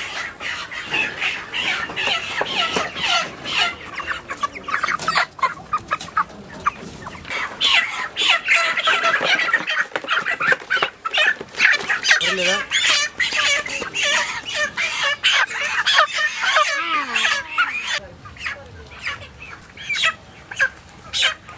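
Many chickens clucking and squawking together, with frequent short sharp clicks among the calls. The clamour dies down near the end.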